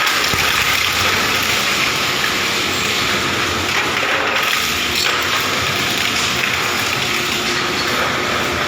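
Shredder machine running with a loud, steady mechanical noise.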